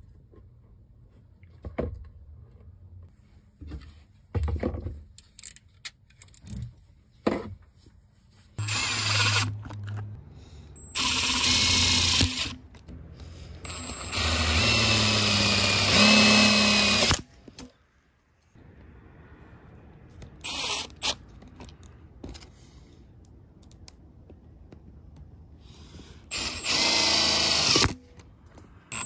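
Cordless impact driver running in five bursts, from a fraction of a second up to about three seconds each, as it drives screws through a metal bracket into a stainless steel chimney pipe. Small clicks and handling noises fall between the bursts.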